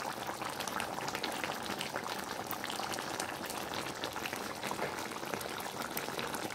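Thick curry chicken sauce bubbling in a pot: a steady, dense crackle of small pops.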